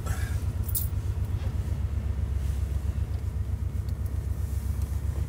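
Car engine idling with a steady, pulsing low rumble, heard from inside the cabin, with a brief click just under a second in.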